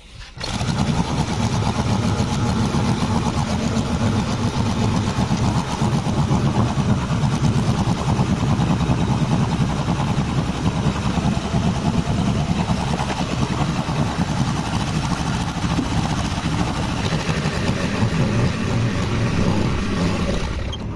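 Small stationary engine running steadily and driving a drum feed mixer that churns soaked cattle feed (wanda). It comes in about half a second in and fades right at the end.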